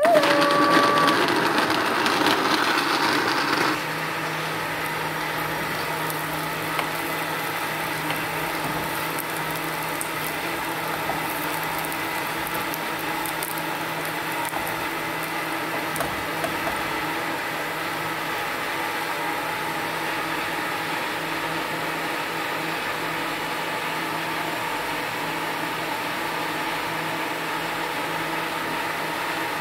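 Kenwood blender motor running with a whine, blending tomatoes and garlic, for the first few seconds. It then gives way to a quieter, steady hum and hiss.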